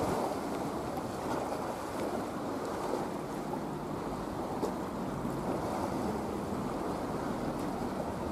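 Steady wind and choppy sea water, with wind buffeting the microphone. A faint low hum comes and goes midway through.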